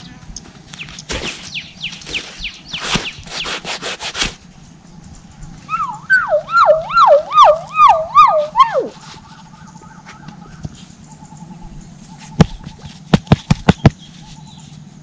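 Fingers scraping and rubbing through dry soil around a large snail's shell, in quick strokes. In the middle a loud wavering wail rises and falls about five times over some three seconds, like a siren. Near the end come about six sharp clicks.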